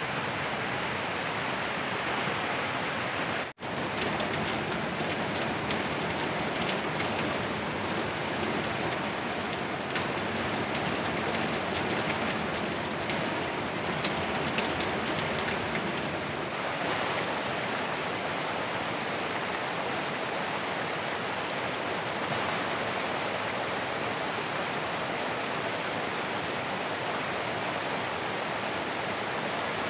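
Steady rushing and splashing of a mountain stream tumbling over boulders in small waterfalls, with spring water pouring off a rock face. The sound cuts out for a moment a few seconds in. The stream is running high after heavy rain upstream.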